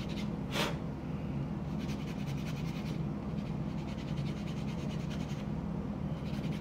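Plastic model-kit part being sanded on a fingernail buffing block: bursts of quick back-and-forth scratchy strokes, over a steady low hum, with one brief sharp sound about half a second in.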